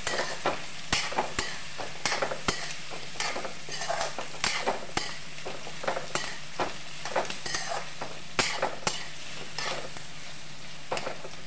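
Sliced onions and carrots sizzling in ghee in a metal kadhai, with a metal utensil scraping and knocking against the pan as they are stirred, about twice a second, easing off near the end.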